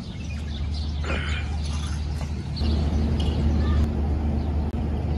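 Steady low outdoor rumble, growing louder about two and a half seconds in, with a few faint high chirps.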